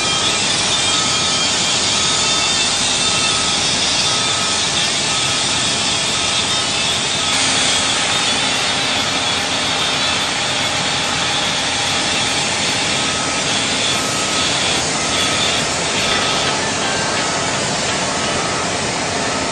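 Heavy earthmoving machine running, a loud steady rushing drone, with its back-up alarm beeping a little more than once a second. The beeping stops for several seconds midway, then starts again.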